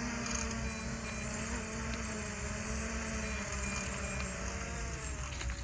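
JJRC Epik X5 Pro quadcopter's brushless motors and propellers whirring steadily as it descends in automatic landing mode, over a low rumble. The whine dips slightly in pitch near the end.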